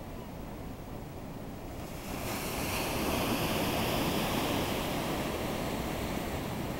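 Ocean surf: a low steady wash of water, then a wave breaks about two seconds in and its whitewater hisses, loudest in the middle and easing off near the end.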